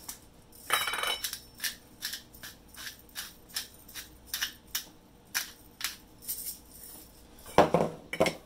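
Small sharp clicks, about two to three a second, from a spice container being handled while a bowl of tartar sauce is seasoned by hand, with a louder rustle about a second in and a louder clatter near the end.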